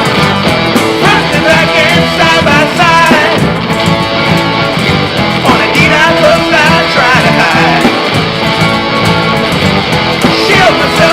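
Rock music with strummed guitar, playing steadily.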